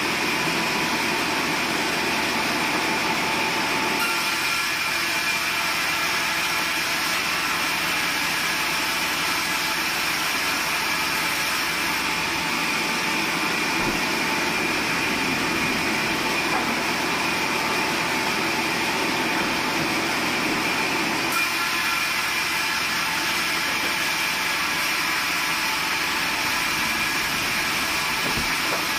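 Sawmill band saw running steadily while a long plank is guided along its table: a constant machine noise with a steady high tone that holds at one level throughout.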